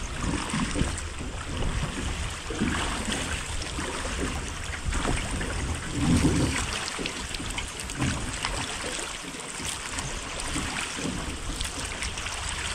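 Water splashing and lapping around a drift boat as it is rowed downriver. Wind rumbles on the microphone every second or two.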